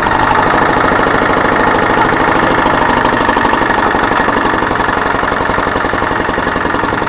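Dongfeng single-cylinder diesel engine of a mini tractor running steadily with a fast, even chugging.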